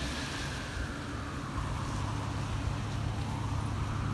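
An emergency-vehicle siren wailing, its pitch falling slowly and then rising again in a cycle of about four seconds, over a steady low rumble of street traffic.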